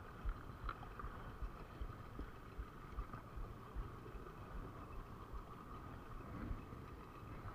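Faint steady hum of a distant small boat engine, over irregular low rumbling on the microphone.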